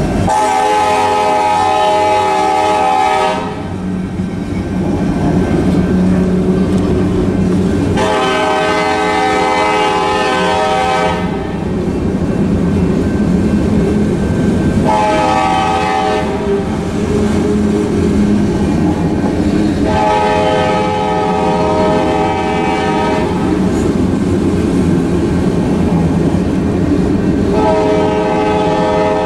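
Freight cars rolling through a grade crossing, with a steady rumble and wheels clattering over the rail joints. Over it a locomotive air horn sounds a chord in five blasts a few seconds apart, the first at the start and the last beginning near the end.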